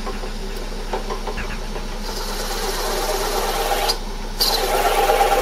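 Metal lathe running with a steady mechanical whir; near four seconds the higher part of the sound drops out briefly, then it comes back louder.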